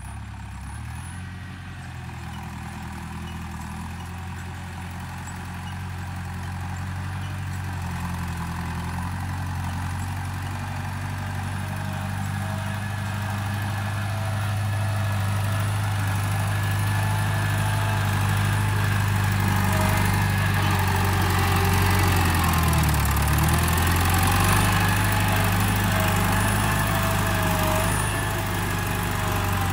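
New Holland TS90 tractor's diesel engine working under load while pushing soil with a front blade, getting louder as it comes closer. About two-thirds of the way through, the engine note sags briefly under the load and then picks back up.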